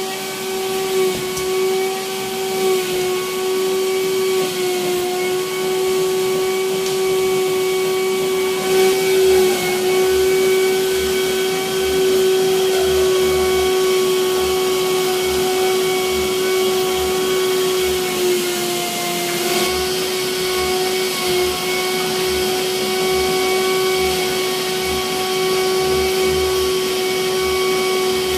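Vacuum cleaner running steadily as its hose nozzle is worked over a mattress: a continuous motor whine with airflow hiss, its pitch dipping briefly a couple of times.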